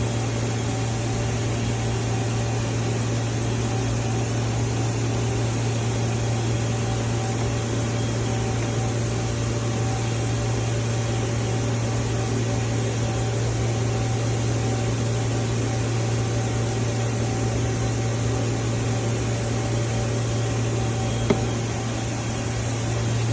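CNC lathe running in a workshop: a steady machine hum with a low drone and faint steady tones above it, and one short sharp click near the end.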